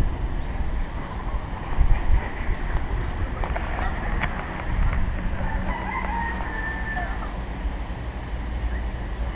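Low steady rumble of the Baldwin steam locomotive, with a rooster crowing about six seconds in.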